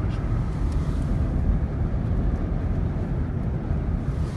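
Steady low rumble of a car on the move: engine and road noise, without breaks or distinct events.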